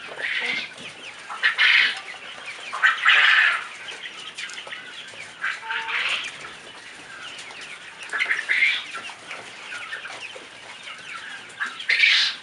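A flock of young chickens calling in repeated short, high-pitched bursts every second or two, with a brief lower call about six seconds in.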